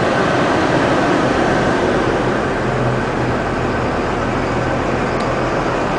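Mid-size coach's engine idling at normal (not fast) idle, heard from inside the passenger cabin as a steady low hum under a constant rush of air from the climate system.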